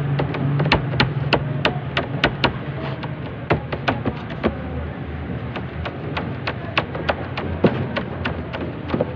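Hands rolling and patting ensaymada dough on a stainless-steel worktable: irregular sharp taps, about two or three a second. A steady low hum runs underneath.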